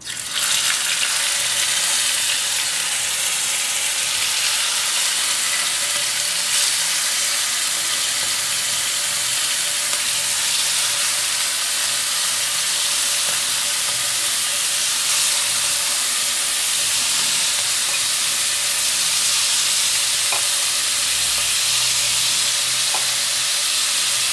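Marinated chicken pieces sizzling in hot oil in a frying pan. The sizzle starts suddenly as the first piece goes in, then runs steadily as more pieces are added.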